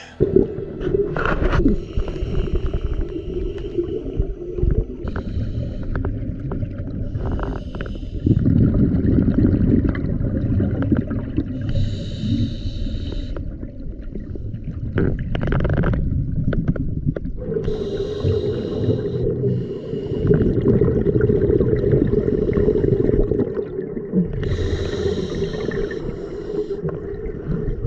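Scuba diver breathing through a regulator underwater: long stretches of low rumbling, bubbling exhalation alternate with shorter hissing inhalations every few seconds.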